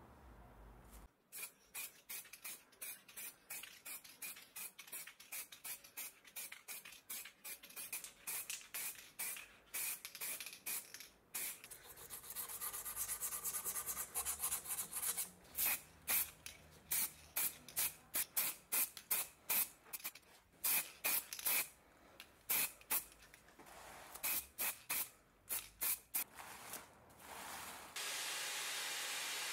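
Hand sanding of hardened filler on a cast-iron frame with a folded piece of sandpaper: many quick, scratchy back-and-forth strokes. Near the end the strokes give way to a steady, even hissing noise.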